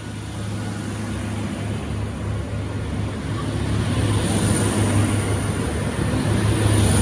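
V/Line VLocity diesel multiple unit's engines and running gear, a steady low drone that grows louder as the train moves past at the platform. A thin high whine joins about halfway through.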